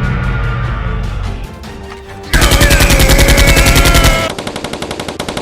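Machine-gun sound effect: rapid automatic fire starting about two seconds in, loud at first and then somewhat quieter, with a held, slightly falling tone over the first burst. Background music plays before it.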